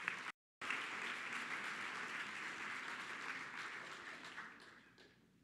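Audience applauding and clapping, fading out over the last second or so. A brief dropout near the start cuts the sound to silence for a moment.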